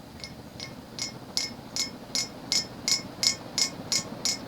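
Emerson Petal 3-speed ceiling fan speeding up in downdraft. A bright, short clink repeats about every third of a second and gradually quickens, over a low steady hum.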